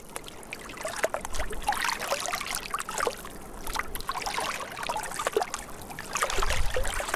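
Small waves lapping and splashing irregularly at the water's edge, with a low rumble coming up near the end.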